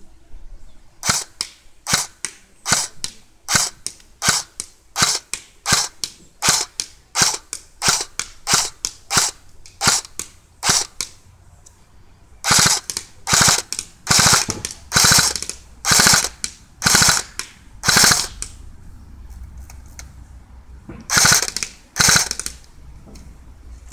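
D-Boys FN SCAR Heavy battery-powered airsoft electric gun firing: a quick run of single shots at about two a second, then a series of louder short bursts, with two more shots near the end. Each shot is the mechanical snap of the gearbox cycling.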